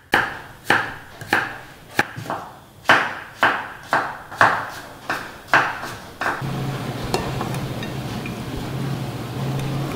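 Chef's knife slicing a carrot on a wooden chopping board: sharp, regular knocks of the blade on the board, about two a second. About six seconds in the knocks stop and a steady hiss with a low hum takes over.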